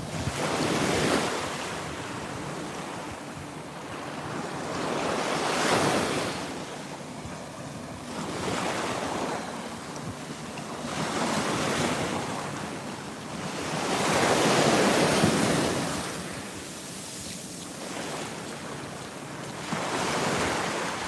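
Atlantic Ocean surf: waves breaking and washing up the beach, swelling and fading about every four to five seconds, with wind buffeting the microphone.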